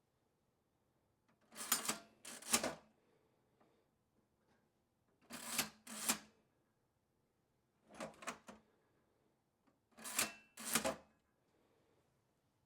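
1914 National Cash Register Model 317 being operated, four times, each time giving a pair of short mechanical clatters about half a second apart.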